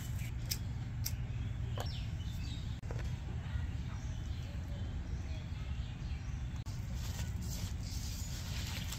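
Steady low background rumble with a few light clicks in the first few seconds and faint bird chirps.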